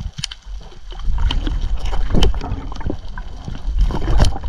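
Underwater camera audio of a freediver grabbing a spiny lobster by hand on the reef: a heavy, rumbling water-and-sand noise that swells about a second in, with many sharp clicks and knocks throughout.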